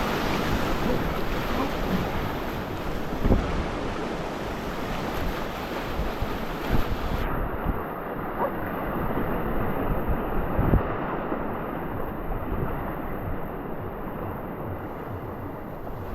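Rushing whitewater of river rapids, with wind buffeting the action-camera microphone and a few dull thumps. About halfway through, the sound turns muffled.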